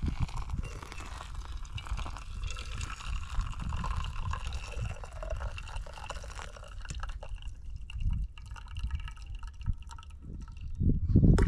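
Hot water poured from a Jetboil pot onto ground coffee in a camp coffee press pot, a steady splashing pour over a low rumble that stops about two thirds of the way through. A loud thump near the end.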